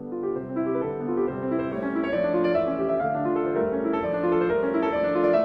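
Background piano music, a flowing melody of steady notes over a held accompaniment.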